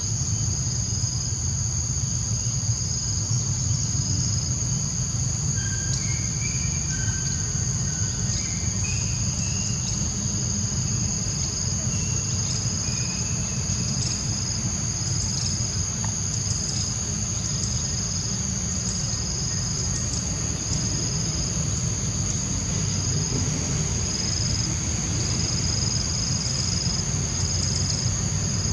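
A steady, high-pitched insect chorus, one shrill drone with a second tone beating in short regular pulses just below it, over a steady low rumble. A bird gives a few short chirps around the middle.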